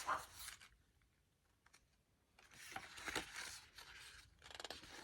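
Pages of a photobook being handled and turned: faint paper rustling and sliding in a few short spells, with a quiet gap about a second in.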